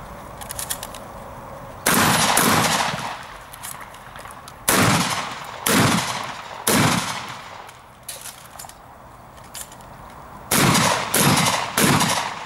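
Shotgun firing seven shots, each a sharp bang with a short echoing tail. One comes about two seconds in, then three about a second apart, then a pause, then three more in quick succession near the end.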